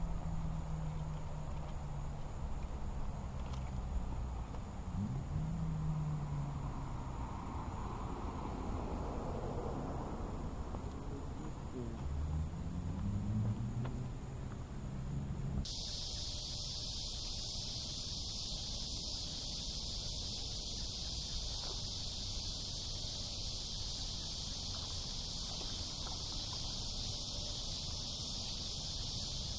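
A steady, high-pitched chorus of summer insects fills the second half, starting abruptly at a cut about halfway in. Before that there is a low hum that rises and falls in pitch, of unclear source.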